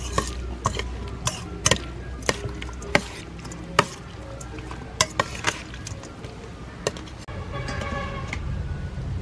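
A metal spoon knocking and scraping against a stainless steel bowl as a shrimp salad is tossed, in irregular clinks. Background music takes over about seven seconds in.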